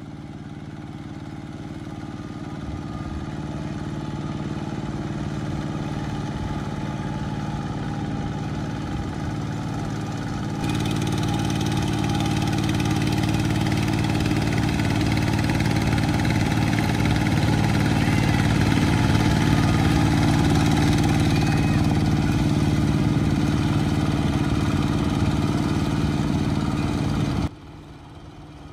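Kubota two-wheel walking tractor's single-cylinder diesel engine running steadily under load while ploughing mud, growing louder, with a step up about a third of the way in and a sudden drop near the end.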